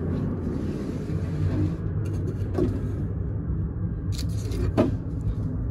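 A steady low rumble that starts abruptly, with a few light knocks and clicks over it in the second half.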